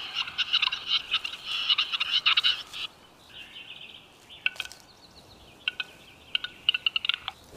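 Western capercaillie cock's courtship song: a dense, scraping, grinding phrase for about three seconds, then a run of separate dry clicks starting up again.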